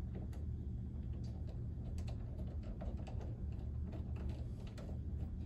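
Phillips screwdriver being turned by hand, driving a screw into a pinball machine's backbox: small irregular clicks and ticks as the bit works in the screw head, over a low steady hum.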